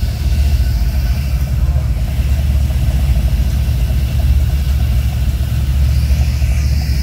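Steady low rumble of classic Chevrolet convertibles' V8 engines idling and rolling slowly at low speed.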